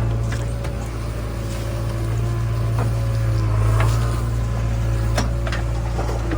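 Heavy diesel engine running steadily with a deep, even hum and a faint steady whine above it, with scattered light clicks and knocks.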